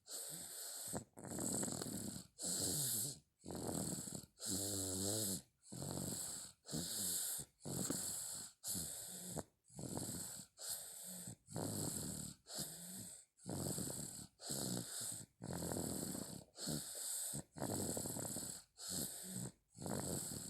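A toddler boy snoring hard, breath after breath at about one sound a second, in and out. There is one longer rattling snore about five seconds in.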